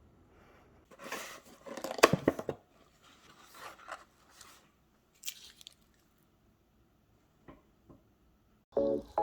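Crinkling, crunching handling noise with sharp clicks, loudest in a burst about a second in, then softer rustles and a few isolated clicks; a short run of musical notes starts near the end.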